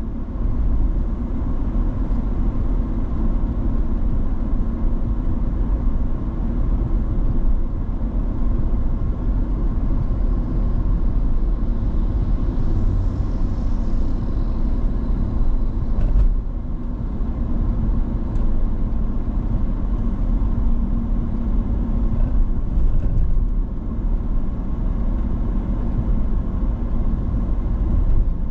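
A car driving: steady engine and tyre rumble, with one brief knock a little past halfway.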